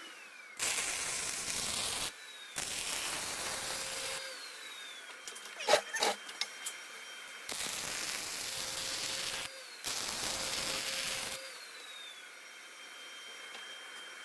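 Arc welding in short stitches: four bursts of steady crackling hiss, each a second and a half to two seconds long, as the welder lays beads on steel mounts. A few sharp metal knocks come between the second and third bursts, about six seconds in.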